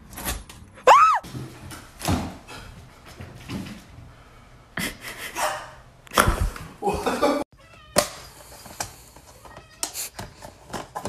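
A cat's meow about a second in: one loud call that rises then falls in pitch. It is followed by a string of short knocks, rustles and voices.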